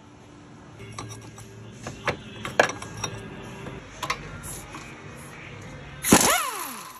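Sharp metal clinks of a socket and extension being fitted onto a shock absorber's lower mounting bolt. About six seconds in comes a short loud burst from a power impact wrench on the bolt, whose motor then winds down with a falling whine.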